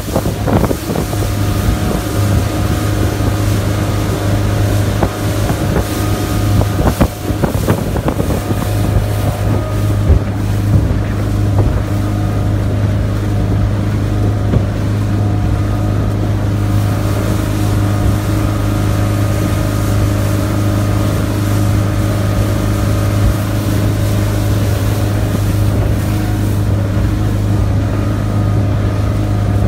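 Motorboat under way: its engine holds a steady hum while wind buffets the microphone, with a few knocks around seven seconds in.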